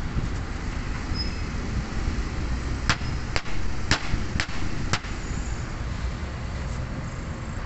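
Five sharp hammer strikes, about two a second, tapping a new oil seal into the steering rack housing until it seats, over a steady background hum.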